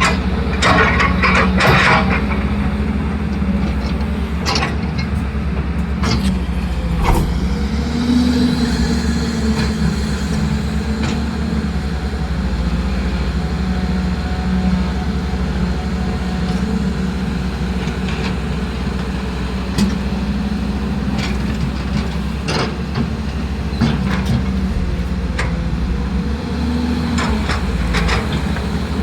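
A machine motor running steadily with a low hum, its pitch rising briefly a few times, with scattered clicks and knocks.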